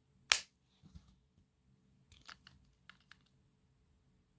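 A plastic wireless-earbud charging case lid snapping shut with one sharp click, followed by a few faint clicks and light handling of plastic earbud cases.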